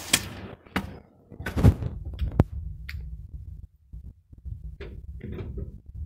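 Irregular knocks and thumps, about eight of them, the loudest about one and a half seconds in, over a low rumble: handling noise from a phone held at arm's length by someone on the move.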